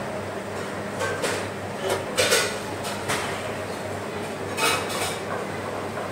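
Scattered clinks and clatter of dishes and metal utensils on stainless-steel kitchen counters: a handful of short, sharp knocks, the loudest a little over two seconds in and again near five seconds, over a steady low hum.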